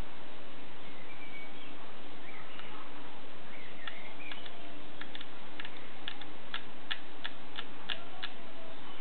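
Small plastic clicks from the Samsung NX10's rear controls, a little over four seconds in and then about three a second as the colour temperature is stepped up, over a steady hiss.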